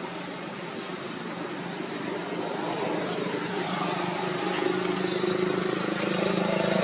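An engine running steadily with a low, even hum that grows louder over the last few seconds, as if a motor vehicle is drawing closer.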